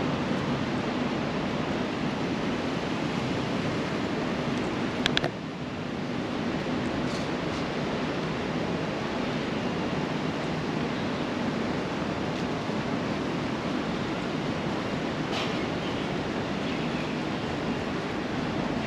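Steady outdoor city ambience: an even wash of noise with a low, constant hum under it, broken by a sharp double click about five seconds in.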